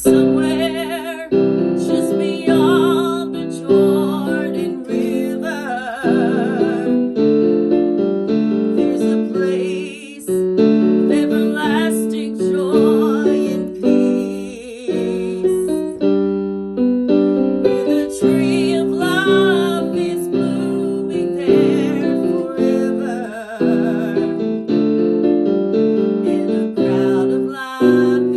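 Piano music: chords struck and left to ring, one after another.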